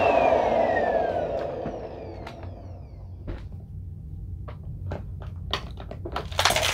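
Vacuum cleaner motor switched off and spinning down, its whine falling in pitch and fading over the first second or two. Then scattered small clicks and crackles that grow thicker and louder near the end.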